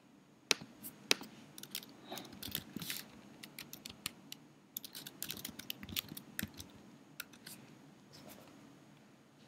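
Typing on a computer keyboard, with mouse clicks: a faint, irregular run of light key clicks with short pauses between, dying away about a second before the end.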